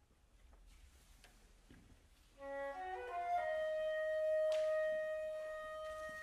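Contemporary chamber music: after a couple of seconds of near silence with faint taps, a solo woodwind plays a quick upward run of notes and then holds one long, steady note.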